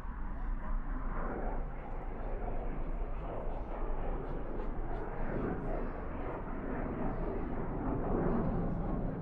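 Distant jet aircraft rumble heard from about 2 km away: a steady low noise that grows slightly louder toward the end.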